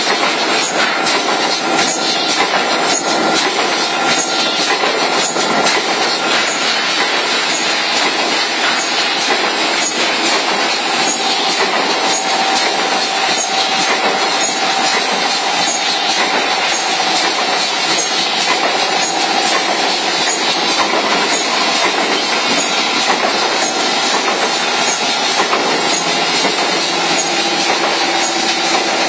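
Automatic pouch spout-welding machine running continuously: a steady, dense mechanical clatter of rapid clicks with no pauses.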